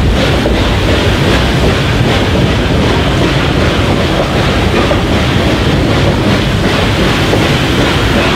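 Narrow-gauge train rolling along the track, heard from an open car: a steady, loud rumble of the wheels and cars on the rails.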